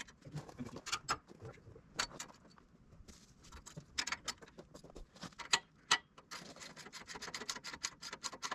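Sharp metallic clicks and taps of hand tools and steel sawmill parts being fitted and fastened, with a fast run of clicks in the last couple of seconds.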